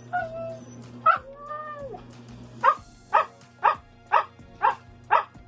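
Siberian husky vocalising on cue: a short falling whine, one bark, and a drawn-out rising-and-falling howl. These are followed by six evenly spaced barks, about two a second.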